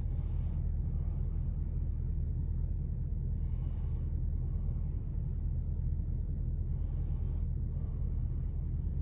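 Steady low idle hum of a Bentley GT's V8 engine, with a short faint hiss recurring about every three and a half seconds.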